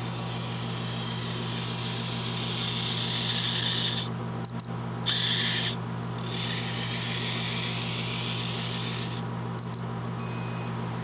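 Parallax Boe-Bot robot's drive servos whirring as it rolls across carpet. The whirring stops twice, and each time two short high-pitched beeps sound from its speaker, the signal that it has stopped to take an instruction from its genetic-algorithm controller. A steady low hum runs underneath.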